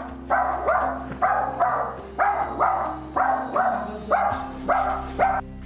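A dog barking over and over, about two barks a second, stopping shortly before the end.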